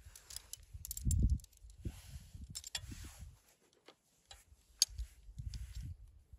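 Thin aluminium poles of a folding camp frame clicking and clinking as they are unfolded and set, in short irregular ticks, with low dull handling thumps, the loudest about a second in.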